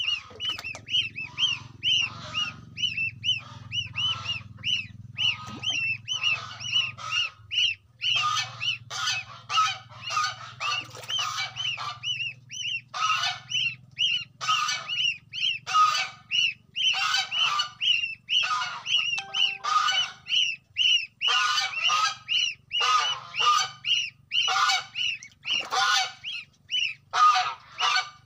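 A group of goslings peeping continuously: rapid, high-pitched calls, each a quick rise-and-fall, in overlapping bursts. These are contact calls to their siblings and mother.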